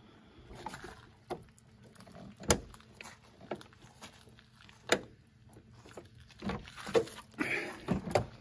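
Several sharp knocks and clicks at uneven intervals, with a rustling scrape near the end, from handling around the opened rear doors of a camper van.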